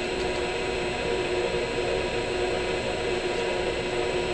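Milling machine running steadily at low spindle speed with its motor humming, the end mill spinning free above the work and not yet cutting.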